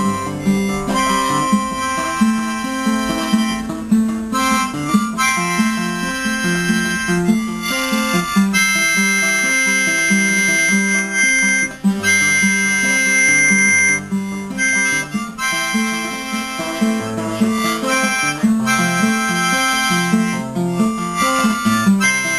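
A harmonica and an acoustic guitar played together by one player: the harmonica plays a melody and chords over a steady guitar accompaniment, holding one long chord for several seconds in the middle.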